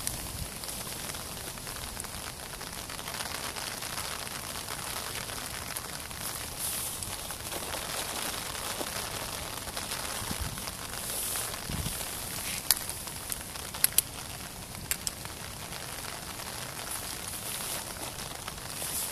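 Steady patter of rain, with a few sharp clicks about two-thirds of the way through.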